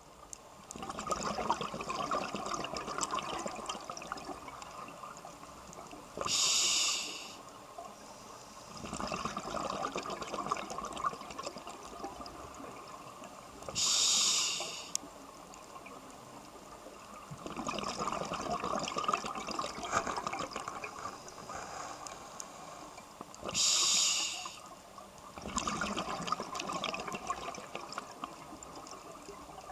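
Scuba diver breathing through a regulator. Several-second stretches of crackling, bubbling exhaled breath alternate with three short, loud hisses of inhalation through the demand valve, one about every eight to ten seconds.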